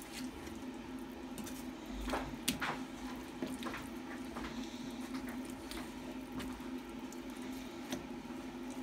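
Kitchen knife cutting raw pork on a wooden cutting board: soft squishy cuts through the meat and scattered taps of the blade on the board, the sharpest about two and a half seconds in, over a steady low hum.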